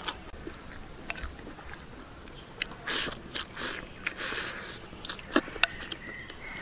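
Chopsticks clicking and scraping against a ceramic bowl as rice and stir-fried edamame are shovelled into the mouth, with eating noises; two sharp clicks near the end are the loudest. A steady high-pitched insect drone carries on underneath.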